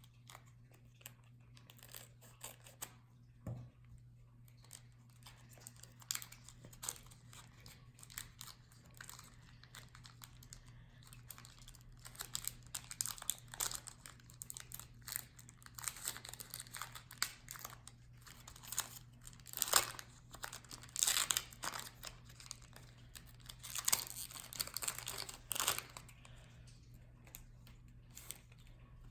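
A foil Pokémon booster pack being crinkled and torn open. Scattered crackles and rustles grow busier and louder about halfway through.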